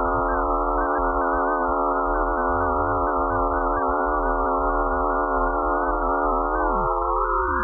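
Eerie electronic drone made of many steady sine-like tones held together in a dense chord, slightly wavering, over a low hum; offered as a sonification of Pluto's magnetic field and radio waves. Near the end some of the tones slide downward while others rise.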